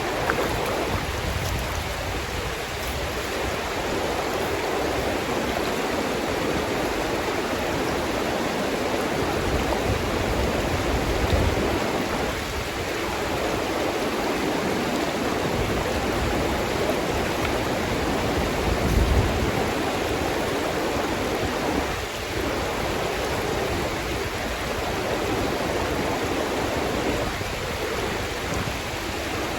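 Upper Kern River's fast pocket water rushing over rocks, a steady loud rush. Twice a brief low rumble rises under it, about a third and two thirds of the way through.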